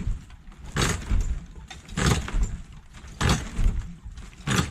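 Heavy hammer blows on the wooden wall of an old chicken coop being demolished, four strikes at an even pace of about one every second and a quarter.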